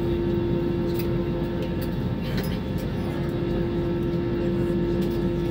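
Airbus A321 cabin noise while taxiing: a steady rumble from the jet engines at idle, with a constant low hum.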